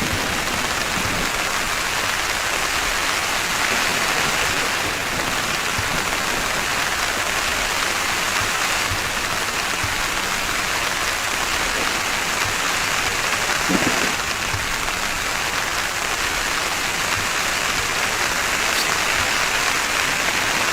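Heavy rain falling steadily and drumming on a tent roof, with a single short low knock about fourteen seconds in.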